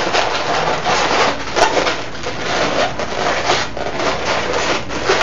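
Inflated 260 latex balloons rubbing against each other in a steady scratchy rustle as a balloon piece is worked and tucked in between the segments of a twisted balloon sculpture.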